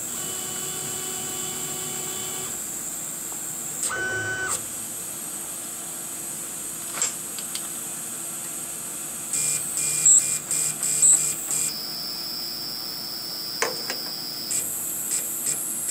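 Stepper motors of a CNC-converted 9x20 benchtop lathe whining as the carriage and cross slide are moved, a set of steady high tones that change pitch several times, with a short pulsing stretch about ten seconds in.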